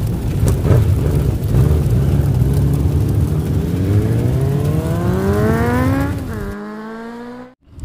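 Engine-revving sound effect: a rumbling engine note that climbs steadily in pitch for about three seconds, then holds, fades and cuts off suddenly near the end.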